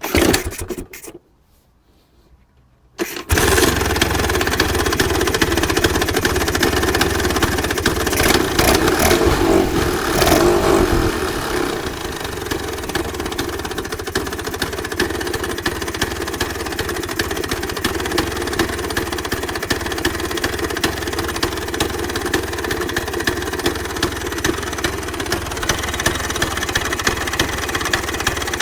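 Freshly rebuilt 1966 Vespa Sprint's single-cylinder two-stroke engine with a Pinasco 177cc aluminium cylinder being started: a brief firing in the first second, then it catches about three seconds in. It runs at raised revs for several seconds, then settles to a steady idle.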